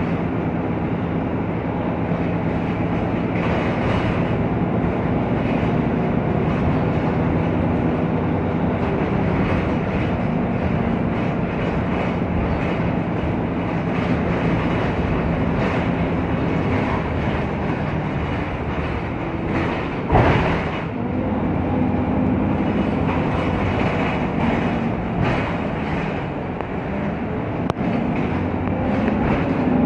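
Inside a VDL Citea LLE city bus on the move: the Cummins natural-gas engine runs with a steady drone under road noise and the rattle of the body and fittings. A sharp knock comes about twenty seconds in.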